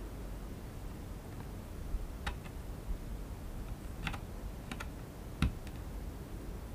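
Small sharp clicks and taps of fine metal tweezers working a tiny antenna cable connector onto a remote controller's circuit board and plastic housing. There are a handful, irregularly spaced: one about two seconds in, a cluster from about four seconds, and the loudest, with a soft knock, about five and a half seconds in.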